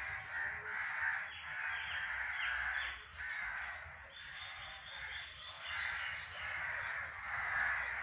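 Birds calling in the trees, a steady run of short harsh calls repeating about twice a second, with a few thin falling chirps above them.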